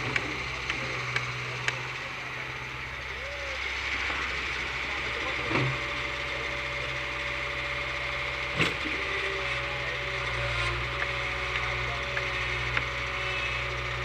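Backhoe loader's diesel engine running steadily, with scattered light clicks and two louder knocks about five and a half and eight and a half seconds in.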